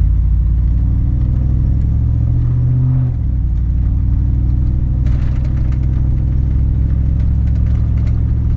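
Pickup truck's straight-through exhaust, with two X-pipes and no resonators, heard from inside the cab as the truck accelerates gently at low revs. It is a steady deep drone that climbs a little, then drops in pitch about three seconds in, as at an upshift of the automatic, and carries on steadily.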